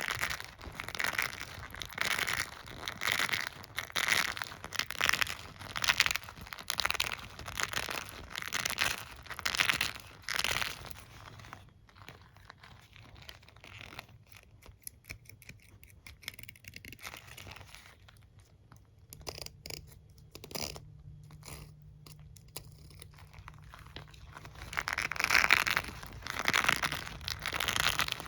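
Hairbrush being stroked and scratched in repeated scratchy strokes, about one a second. Through the middle it drops to scattered light clicks and taps, and the strokes return near the end.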